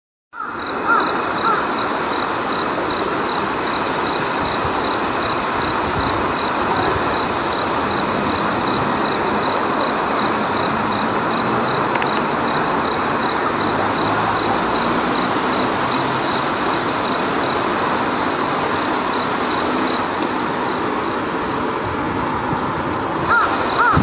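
Jungle crow giving two short caws about a second in and a few more near the end, over a steady noisy background with a constant high-pitched hum.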